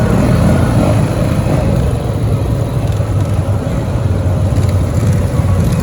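Four-wheeler ATV engine running, loud and steady.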